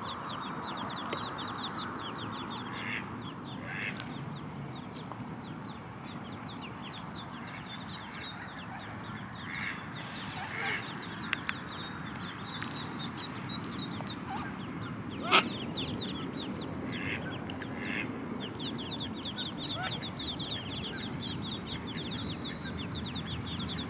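Mallard ducklings peeping rapidly and almost without pause, with a few quacks now and then from the hen mallard. A single sharp click about fifteen seconds in.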